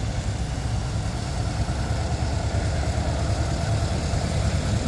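Volkswagen bay-window bus's air-cooled flat-four engine running steadily at low revs as the bus rolls slowly past.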